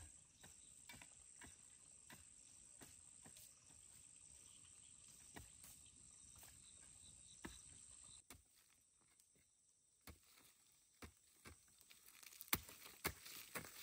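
Hand hoe chopping into dry soil to dig planting holes: faint quick strikes about two a second, then after a short pause louder, more spaced strikes near the end.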